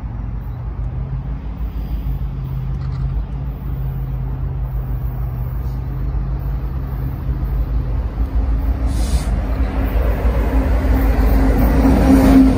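Norfolk Southern diesel freight locomotives approaching and passing close by. The engines' steady drone grows louder and its note shifts higher about two-thirds of the way through, and wheel and rail rumble builds near the end as the lead unit comes alongside.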